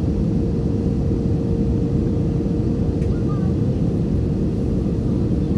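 Jet airliner cabin noise in flight: a steady low roar of engines and rushing air, heard from inside the cabin, with a faint steady hum running through it.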